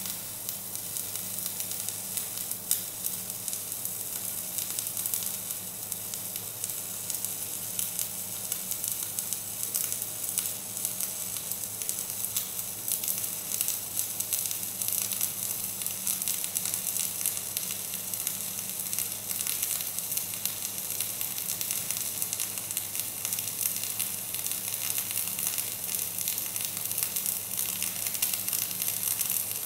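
Electric arc welding: the arc gives a continuous crackling sizzle, with a steady low hum beneath it.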